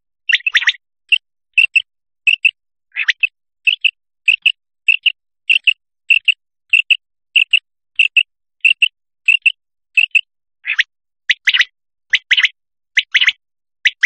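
Common quail calling: short, sharp high-pitched notes, many of them quick doublets, repeated at an even pace of nearly two a second. In the last few seconds the notes turn longer and harsher.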